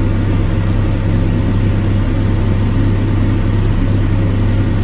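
Tractor engine running steadily at working speed while pulling a hay baler, a loud, even hum.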